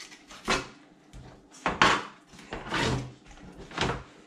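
Fillet knife slicing along a shad's backbone, the blade scraping over the bones and the plastic cutting board: about four short scraping strokes, roughly a second apart, as the fillet is cut free.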